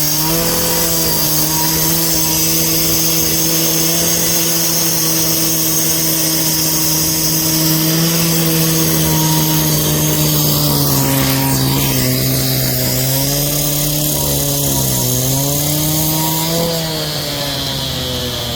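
A small engine-driven machine running loud and steady at high speed. Its pitch sags and wavers for a few seconds past the middle, as if the engine is being loaded, then recovers.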